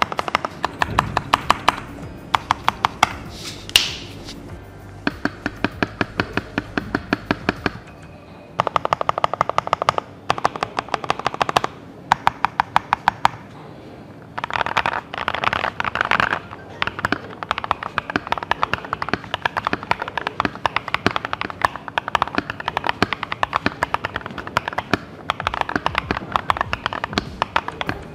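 Fast typing on a Keychron V1 mechanical keyboard: rapid keystroke clacks in runs of a few seconds with brief pauses between them, over background music.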